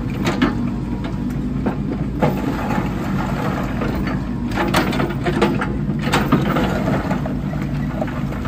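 SANY crawler excavator's engine running steadily while its steel bucket scrapes and knocks through broken concrete slabs and rubble, with irregular clatters of concrete chunks, busiest in the middle of the stretch.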